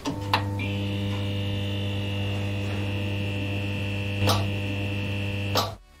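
Neon sign buzz sound effect: a steady electrical hum with a higher buzz joining about half a second in, broken by sharp crackles as the sign flickers on, once in the middle, and again as it cuts off just before the end.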